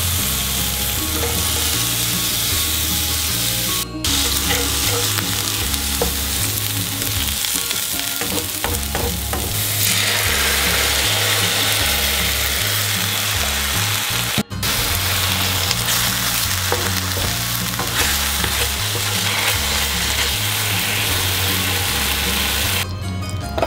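Chopped onions sizzling in hot oil in a frying pan while being stirred with a wooden spatula. The hiss is steady and drops out for an instant twice.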